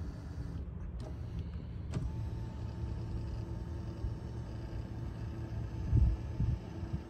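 Power seat motor whirring as the seat is driven by its side switch: a steady whine that starts about two seconds in, with a couple of thumps around six seconds in.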